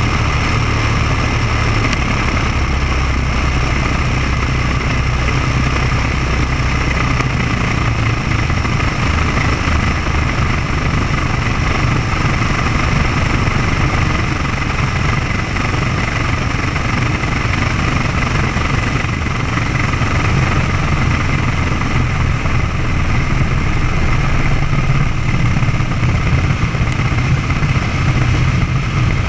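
Maule floatplane's piston engine and propeller running steadily during a descent and landing on a lake, louder in the last few seconds.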